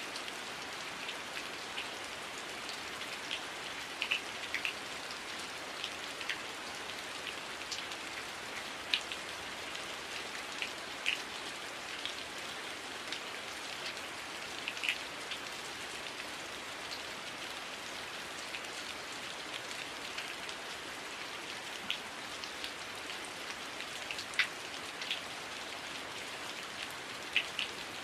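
Heavy rain falling steadily, an even hiss with scattered sharper drop hits standing out every second or so.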